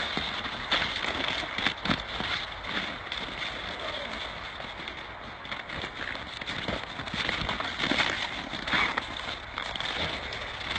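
A horse's hooves thudding and crunching irregularly on snowy ground as it plays and rears, over a steady hiss.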